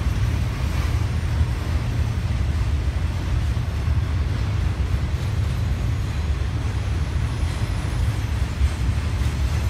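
A train passing, heard as a steady low rumble.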